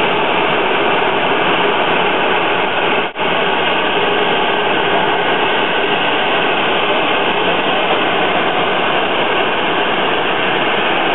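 Jet engines of a taxiing Boeing 737 airliner running at low taxi power: a loud, steady rushing noise, with a brief dropout about three seconds in.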